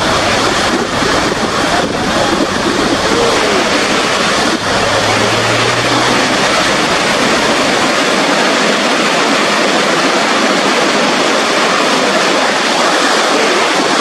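Steady, loud rushing roar of Niagara's Horseshoe Falls, the water pouring down into the gorge. A low hum comes in briefly about five seconds in, and the deepest part of the roar thins out at about eight seconds.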